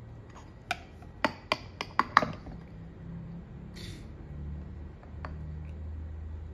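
Small ceramic cups clinking against each other and against the natto maker's plastic tray as they are lifted and set back in place: a quick run of about six sharp clinks in the first couple of seconds, then a lighter knock later on.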